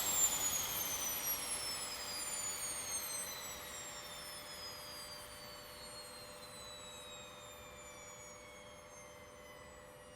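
Embraer E175 turbine winding down after shutdown: a high whine with several overtones falling steadily in pitch and fading away. A steady low hum comes in about halfway through.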